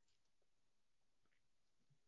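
Near silence: a pause between speakers on a video call.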